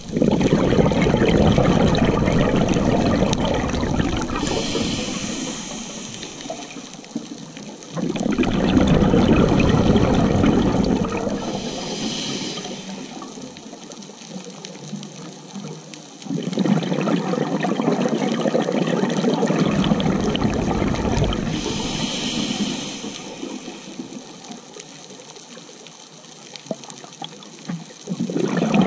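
Scuba diver breathing through a regulator underwater: long rushes of exhaled bubbles that start abruptly and fade over several seconds, about every eight seconds, with a short high hiss of inhalation through the regulator between them.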